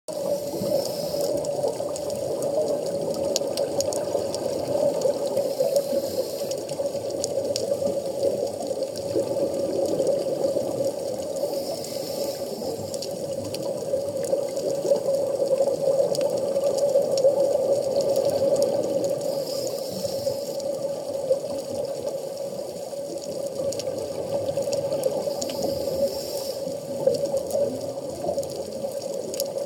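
Underwater ambience on a scuba dive: a steady water noise with a constant hum, scattered faint clicks, and a hiss of the diver's exhaled regulator bubbles about every six or seven seconds.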